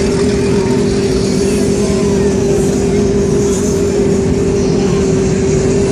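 Motorboat engine running steadily at low speed: a constant hum with a steady mid-pitched drone over a low rumble.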